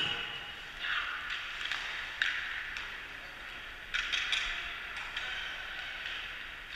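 Ice hockey play echoing in an indoor rink: skate blades scraping on the ice in repeated hissing strokes, with a few sharp clacks, the loudest a little over two seconds in.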